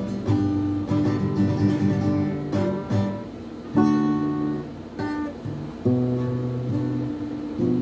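Acoustic guitar strummed, one chord after another, each chord left to ring before the next stroke, with no singing over it.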